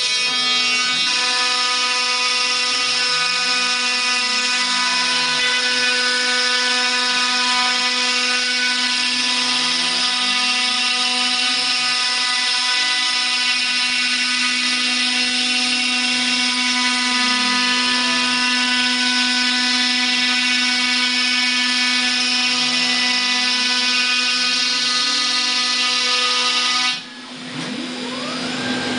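CNC router's 5 hp Colombo spindle with a 1/2-inch solid carbide bit cutting double-laminated melamine particleboard: a loud, steady whine with many overtones. Fainter drive-motor tones rise and fall about every six seconds as the machine traces the circle. Near the end the cutting sound drops out suddenly and the spindle runs on while the motor tones sweep up and down.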